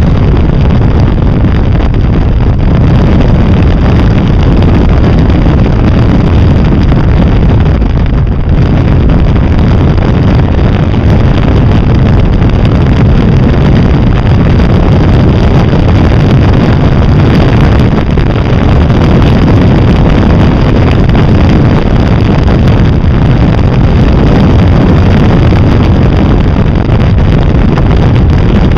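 Wind buffeting a Can-Am's camera microphone at road speed, with the machine's engine running steadily underneath in a loud, even rush.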